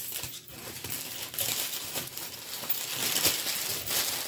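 Brown packing paper crinkling and rustling as it is unwrapped and crumpled by hand, in irregular crackles.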